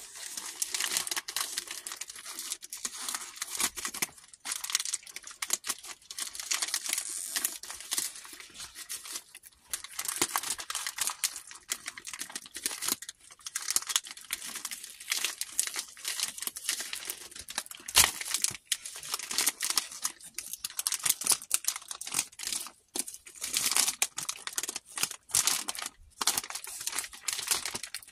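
Glossy plastic mailer bag crinkling and tearing as it is pulled open by hand, an irregular run of crackles with one sharp snap about two-thirds of the way through.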